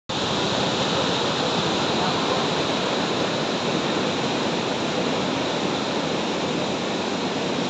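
Rushing floodwater: a river in spate churning past a bridge, a steady, loud rush of turbulent water.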